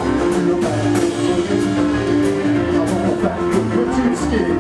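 Live band playing a boogie-woogie instrumental passage: guitar over a steady, repeating bass line and a regular drum beat.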